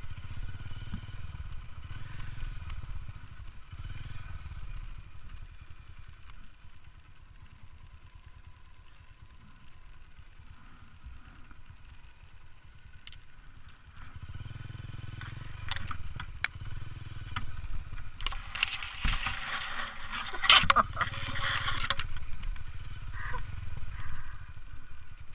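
Motorcycle engine running at low speed with a steady low rumble on a bumpy dirt track. It eases off in the middle, and about three-quarters of the way through a louder rush of noise with sharp crackles comes over it.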